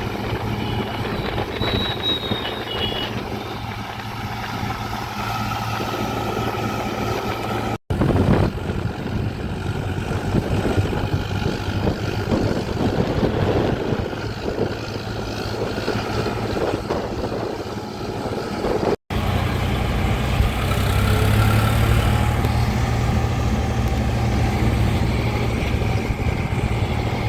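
Heavy farm machinery engine running steadily during the rice harvest, broken by two abrupt cuts; the last part carries a stronger low hum.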